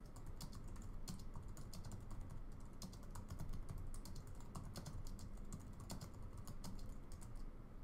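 Typing on a computer keyboard: a quick, uneven run of quiet key clicks, several a second, as a sentence is typed.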